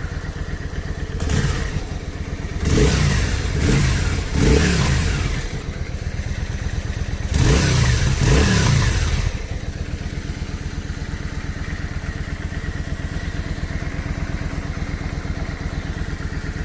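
Yamaha Virago 535's air-cooled V-twin on its stock exhaust, idling with a steady low beat and revved in a series of throttle blips: a short one about a second in, three in quick succession from about three to five seconds, and two more around eight seconds, before settling back to idle.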